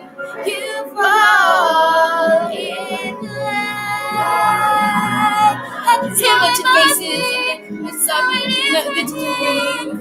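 Two girls singing, with long held notes that waver in pitch.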